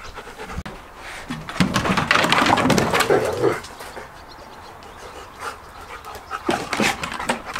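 Two dogs playing rough over a ball, with dog vocal sounds loudest between about one and a half and three and a half seconds in, then quieter.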